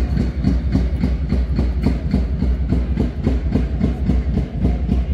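A drum beat keeping a fast, even pace over a steady low rumble.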